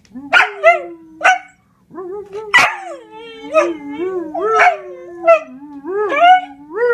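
Pet dog vocalizing: a few short barks in the first couple of seconds, then a long howl whose pitch wobbles up and down.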